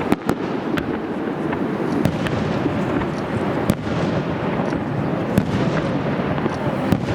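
Aerial fireworks bursting in a finale barrage: sharp bangs at irregular intervals, about ten in all, over a continuous dense rumble and crackle.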